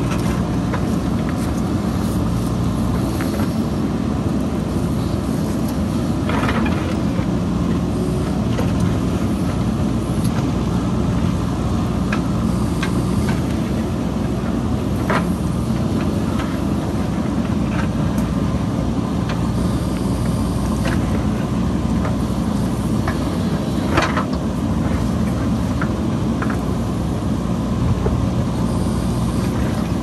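JCB backhoe loader's diesel engine running steadily as it digs into a hillside, with scattered sharp knocks and clanks from the digging, the clearest about six, fifteen and twenty-four seconds in.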